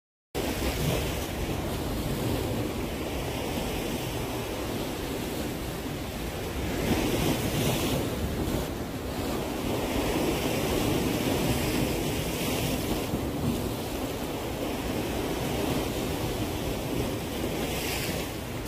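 Sea waves washing against a concrete breakwater, with wind buffeting the microphone as a steady rush.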